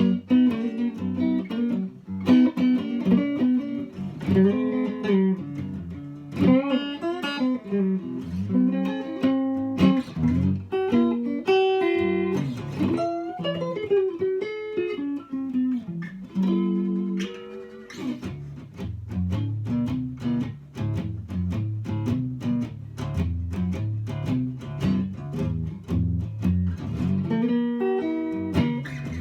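Isana archtop guitar played in an improvised jam, mixing single-note melodic lines with chords. After about 18 seconds it moves into a quicker, rhythmic run of picked notes lower on the neck, and brighter chords return near the end.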